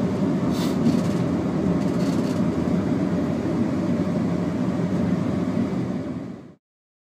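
Intercity 125 diesel train heard from inside the driver's cab: a steady running rumble of engine and rails at slow speed, fading out to silence near the end.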